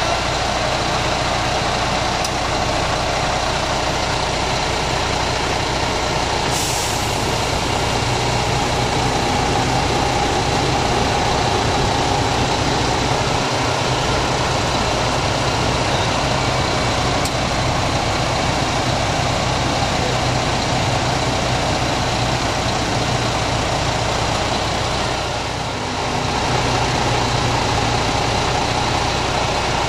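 MAN TGS truck's diesel engine idling steadily with the air-conditioning compressor running, during a refrigerant recharge. A short high hiss comes about six and a half seconds in.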